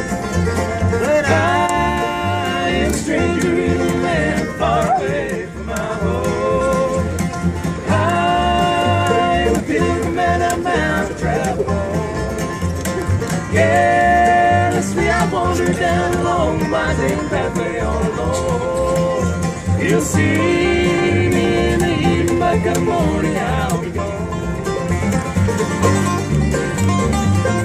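Acoustic bluegrass band playing live: banjo and guitar picking over a steady bass beat, with melodic lead lines weaving above.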